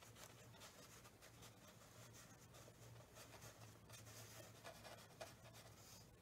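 Faint scratchy strokes of a small paintbrush on watercolour paper, coming irregularly, over a low steady hum.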